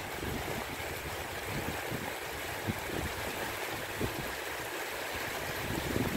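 Heavy monsoon-style rain pouring down in a steady hiss, with gusts of strong wind rumbling on the microphone.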